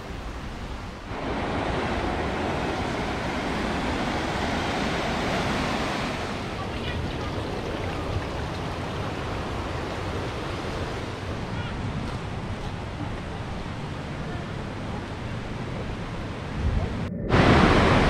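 Steady rushing outdoor noise, growing louder about a second in and breaking off briefly near the end.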